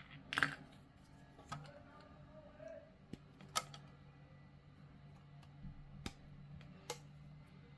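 A handful of light, separate clicks of small plastic miniature parts being handled and pressed together, over a faint steady low hum.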